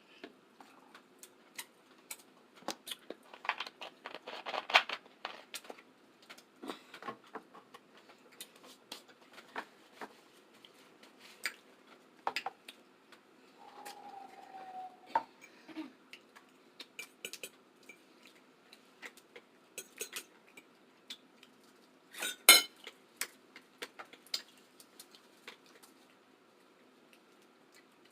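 Scattered clicks, clinks and rattles of eating a seafood boil: utensils, shells and food knocking against dishes. A dense run of quick clicks comes about four seconds in, and the sharpest knock comes about two-thirds of the way through.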